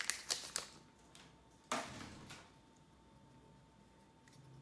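Pokémon booster pack's foil wrapper crinkling and clicking faintly as it is handled, with a quick run of small clicks at the start and one sharper crackle a little under two seconds in.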